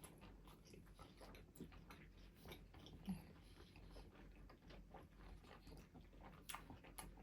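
Faint eating sounds: scattered soft clicks and small mouth smacks of someone chewing chicken wings.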